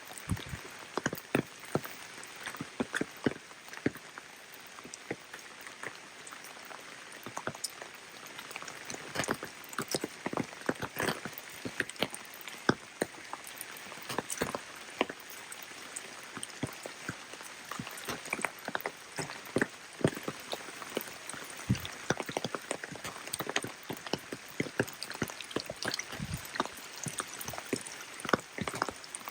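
Steady rain falling, with many irregular sharp drop impacts close by over a constant hiss.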